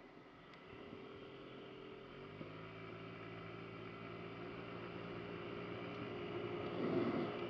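Honda Ruckus scooter engine pulling away from a stop: quiet at first, then from about two seconds in the revs climb and hold steady as it gets up to speed. A louder rush of noise comes near the end.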